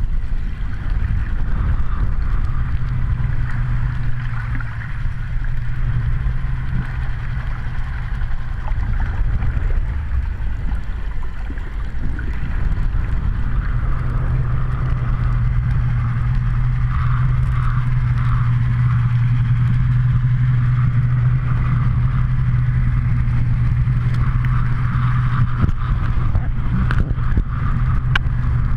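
A motorboat engine heard underwater: a steady low drone with a rushing-water hiss over it, and a few sharp clicks near the end.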